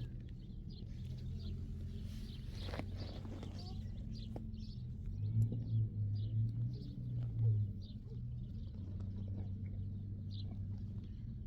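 Small birds chirping in short repeated notes over a steady low hum, which swells for a couple of seconds about halfway through, with a single knock near the start.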